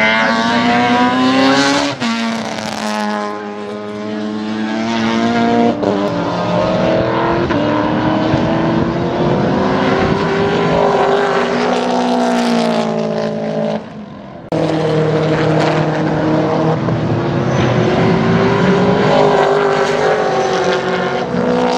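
V8 Holden Commodore race car engine at high revs, its pitch climbing through the gears and dropping off as it lifts and changes down. The sound breaks off abruptly about 2, 6 and 14 seconds in.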